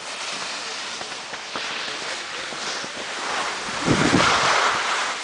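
Skis sliding and scraping over packed snow, with wind buffeting the microphone; the noise swells and is loudest about four seconds in.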